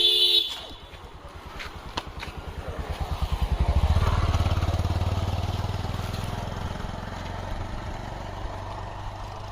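A small engine vehicle, motorcycle-like, passing close by: its pulsing engine note builds to its loudest about four seconds in, then slowly fades away. A short, loud beep sounds at the very start.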